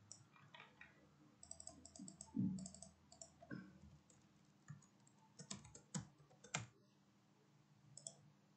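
Faint computer keyboard typing and mouse clicks, irregular keystrokes, with one brief, louder low thump about two and a half seconds in.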